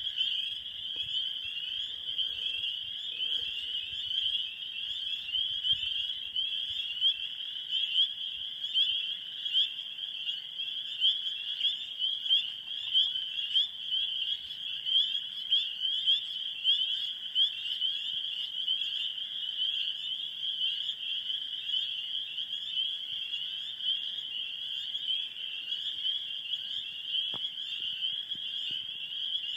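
A dense chorus of many frogs calling at once: countless short, high chirps overlapping in a continuous din with no pause.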